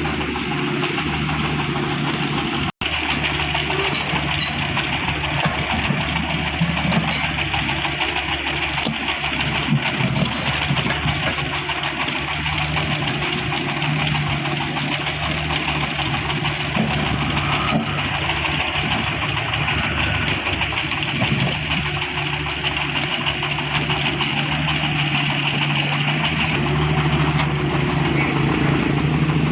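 An engine running steadily throughout, cut off for a split second about three seconds in.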